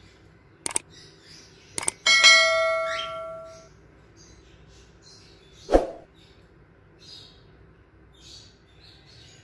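Two mouse clicks about a second apart, then a bell ding that rings on and dies away over about a second and a half: the sound effect of an animated subscribe button. A single sharp click follows a few seconds later.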